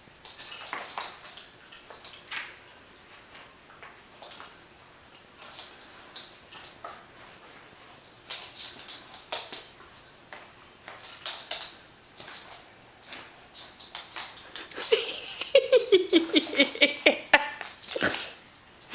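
Small dog whining, with a louder wavering cry that falls in pitch near the end, over scattered light taps and scuffs of movement on a wooden floor.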